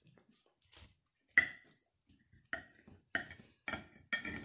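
Large kitchen knife cutting through a chicken sandwich, the blade knocking and clinking sharply against the hard surface beneath five times at slightly uneven intervals, each knock ringing briefly.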